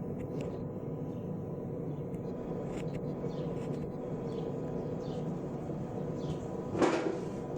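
Steady low machine hum with a few faint handling clicks, and a short louder clatter about seven seconds in.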